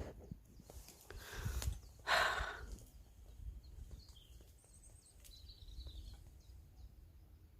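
A loud breathy exhale about two seconds in, following a softer breath just before it, over low wind rumble on the microphone; faint bird chirps in the second half.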